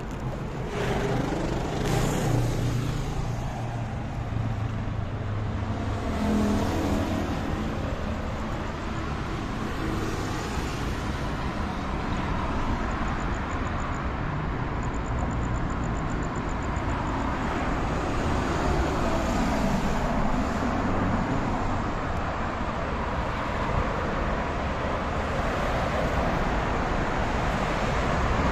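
Road traffic in a city underpass: cars, a bus and a pickup truck passing, a steady rumble of engines and tyres that swells as each vehicle goes by.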